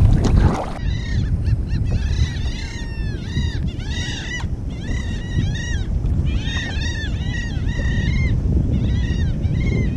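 Seabirds calling over and over in quick clusters of short, arched, high-pitched calls, starting about a second in, over a low steady rush of wind and water.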